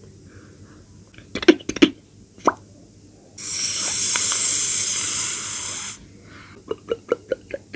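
Mouth-made foley sounds for a food scene: a few sharp pops, then a hiss lasting about two and a half seconds like food sizzling in a pan, then a quick run of clicks near the end.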